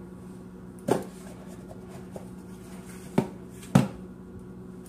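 Three knocks of plastic slime tubs being handled and set down on a hard surface, one about a second in and two close together near the end, the last the loudest, over a steady low hum.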